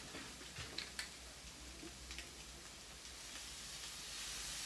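A few faint clicks as a soy sauce bottle is opened, then soy sauce poured into a hot skillet starts to sizzle about three seconds in, a hiss that grows steadily louder.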